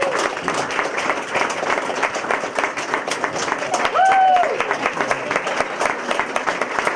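A crowd applauding, with dense clapping throughout and one voice calling out briefly about four seconds in.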